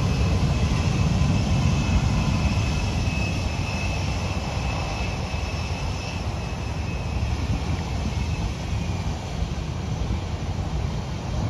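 Jet airliner's engines running at a distance: a steady low rumble, with a faint high whine that fades after about six seconds.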